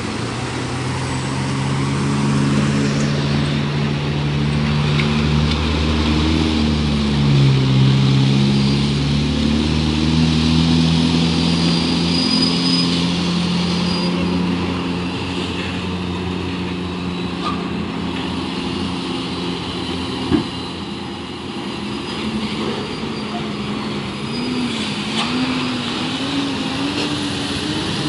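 Heavy trucks' diesel engines running under load, their pitch dipping and rising as they work through the bend, with cars and a motorcycle passing. A single sharp knock about two-thirds of the way through.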